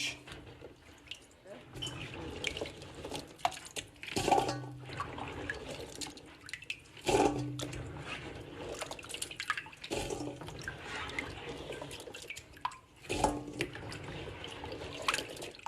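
Tap water running into a cooking pot of pine cones, with splashing and drips. About four knocks from the pot and cones come at intervals of roughly three seconds.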